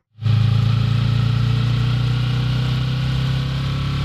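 Yamaha R3's 321 cc parallel-twin engine running at a steady pace while riding, with an even hiss over it. It starts a moment in, just after a brief silent cut.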